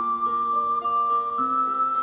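Triple ocarina playing a slow melody that holds a long high note, with lower notes sounding beneath it in harmony.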